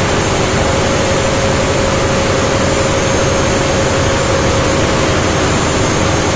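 Marine diesel engine running steadily in a tugboat's engine room: a loud, even drone with a steady whine over it.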